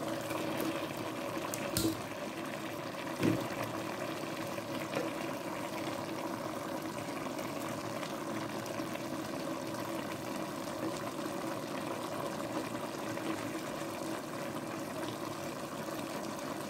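Pot of plantain-and-vegetable stew simmering on the stove, a steady bubbling, with two soft knocks about two and three seconds in.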